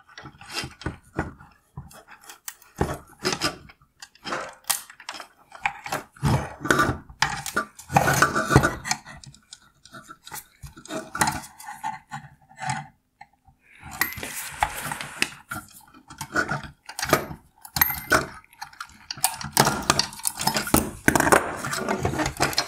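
Needle-nose pliers and gloved hands working plastic wire-harness clips off a headlight's metal projector bracket and heat sinks: irregular clicks, clinks and rattles of metal and plastic parts.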